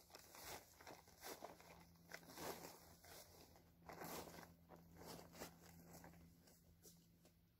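Faint, irregular rustling of plastic tarps stirring in a breeze, in soft swells about every half second.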